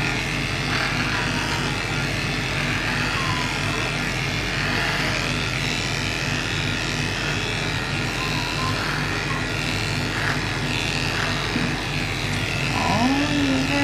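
Electric dog grooming clippers running steadily as they shave a dog's coat, a constant motor hum. A short voice-like sound comes in near the end.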